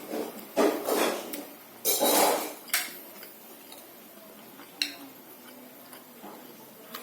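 Spoon scraping against a plate twice in quick succession, followed by a few light clinks of cutlery on the dish.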